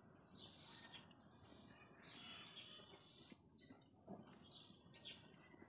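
Near silence, with faint bird chirps coming and going in the background.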